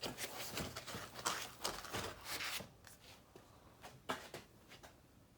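Packaging being handled: a quick run of rustling and scraping, then a few scattered clicks and knocks, all fairly faint.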